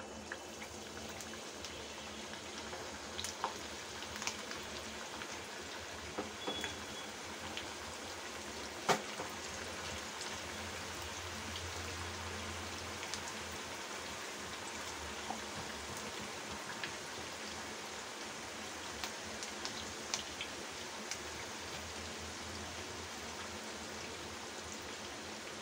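Minced-meat koftas deep-frying in medium-hot oil in a kadhai: a steady sizzle with scattered pops and crackles, one sharper pop about nine seconds in.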